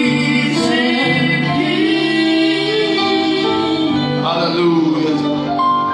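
Gospel worship music: voices singing a slow, held melody over instrumental accompaniment.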